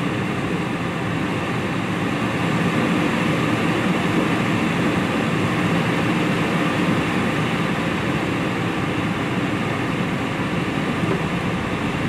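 Steady road and tyre noise inside the cabin of a car driving on a wet, slushy road, with the engine and heater fan blended in.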